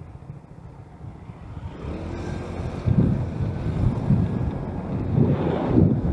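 Wind buffeting the microphone of a moving two-wheeler, a gusty low rumble that swells from faint to loud over the first three seconds and stays loud.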